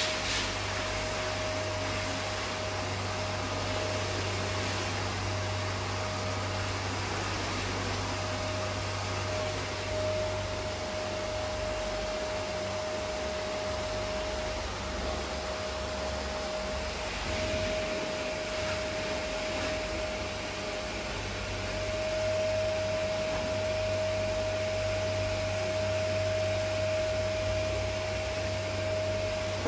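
Vacuum cleaner running steadily, with a constant motor whine over the airflow noise, a little louder in the last third.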